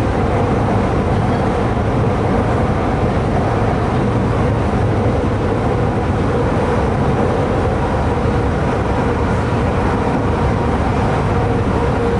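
Shanghai Metro Line 11 train heard from inside the passenger car while running: a steady, loud rumble of wheels on rail and running gear, with a constant hum over it.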